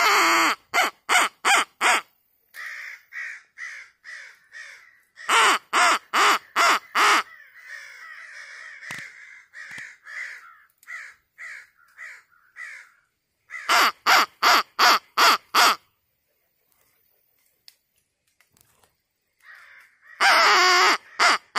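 Crow calling: three runs of five or six quick, loud caws and a longer harsh burst near the end, with fainter crows cawing back in the gaps between them.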